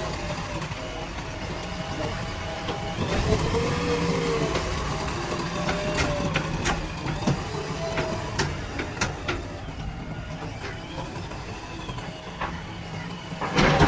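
Diesel engine of a JCB 3DX backhoe loader running steadily, with a run of sharp metallic knocks in the middle and a louder clatter near the end.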